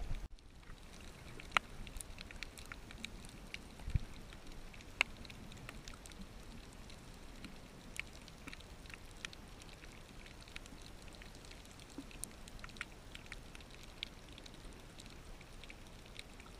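Faint underwater ambience: a low hiss with scattered sharp clicks and crackles, a few each second, and a dull thump about four seconds in.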